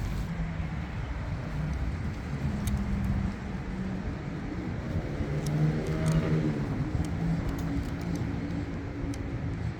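A motor vehicle engine running steadily, with a vehicle passing about six seconds in, its pitch sweeping as it goes by.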